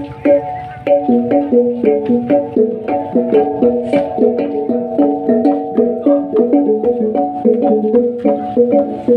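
Traditional Sumbanese funeral music of struck gongs and drum: a fast even beat of about five strokes a second, with ringing gong tones at a few pitches alternating.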